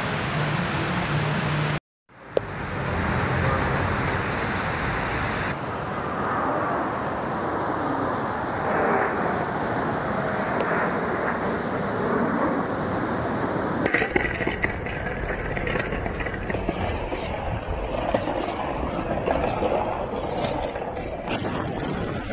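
Distant jet engine noise from the Blue Angels' F/A-18 Hornets flying over the city, a steady rushing sound whose pitch sweeps slowly up and down as they pass. It is framed by city street traffic noise, with a few sharp clicks in the later part.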